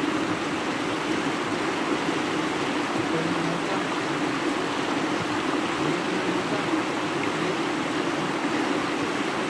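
Shallow rocky river rushing steadily over and between stones close to the microphone.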